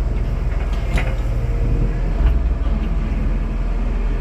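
Heavy construction machinery engine running steadily with a deep rumble, with a short knock about a second in.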